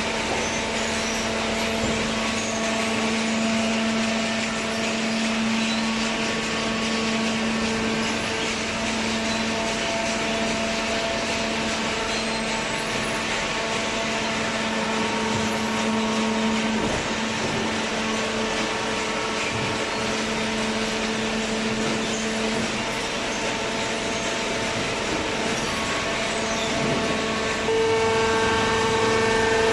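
Hydraulic baler's motor and pump running with a steady, even hum. Near the end it grows louder and the hum strengthens.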